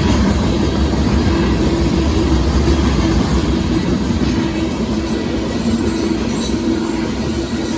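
Union Pacific freight train of gravel hopper cars rolling past close by: a loud, steady rumble and rattle of steel wheels on rail.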